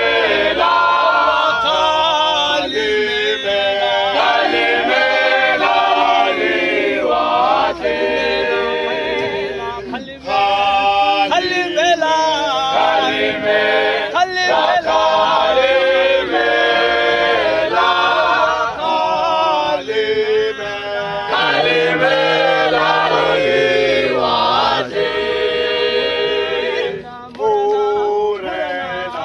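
Men's a cappella choir singing in harmony, several male voices together with no instruments, with short breaks about ten seconds in and near the end.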